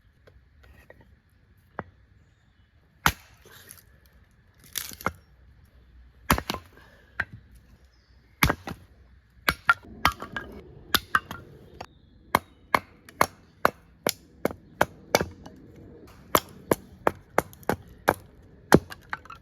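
Firewood being chopped, sharp wooden chops. A few scattered strikes at first, then a steady run of about two strikes a second from about halfway through.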